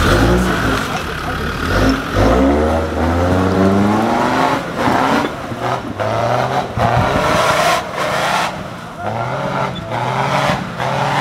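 Land Rover Discovery TD5's five-cylinder turbodiesel revving hard under load, its pitch rising and falling again and again as the truck climbs a steep rutted bank on mud tyres.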